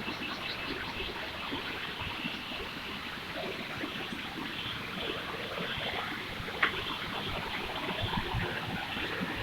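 Steady rush of running water, like a small stream, with one sharp click about six and a half seconds in.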